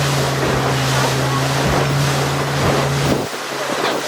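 Boat engine running with a steady low hum under the rush of wind and water, with wind buffeting the microphone. The engine hum cuts off abruptly about three seconds in, leaving the wind and water noise.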